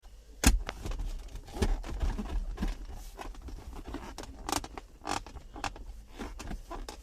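Irregular clicks and knocks of plastic car-interior trim being handled and fitted, over a low rumble. The loudest knock comes about half a second in.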